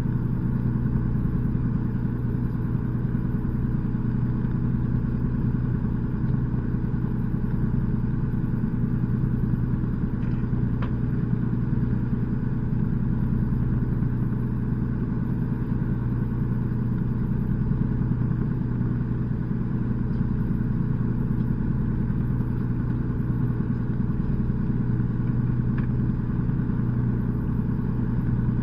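A fishing boat's engine running at a steady low hum.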